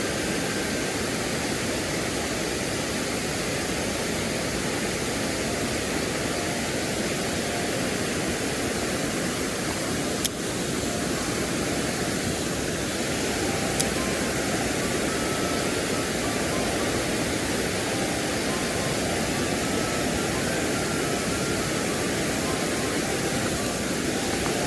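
Mountain stream water rushing over rocks in a steady, even wash, with a short click about ten seconds in.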